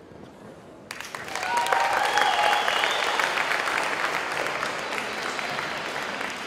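Crowd applause breaks out suddenly about a second in, swells over the next second and carries on, easing slightly toward the end.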